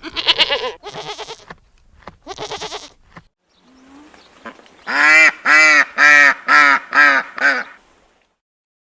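A goat bleating in short, wavering calls, followed after a pause by a farm bird giving a run of seven loud, evenly spaced calls, about two and a half a second.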